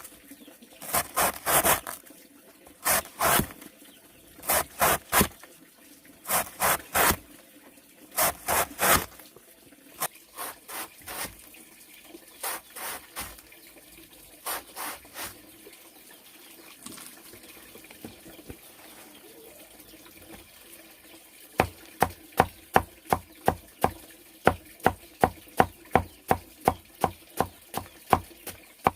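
Repeated strokes of a hand tool on wood or plant material, in short groups of two or three. About two-thirds of the way in they become a steady run of about three strokes a second.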